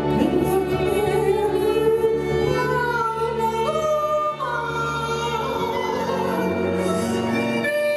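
A woman sings a Hungarian nóta into a microphone in long held notes, backed by a small Gypsy band of violin, cimbalom and double bass.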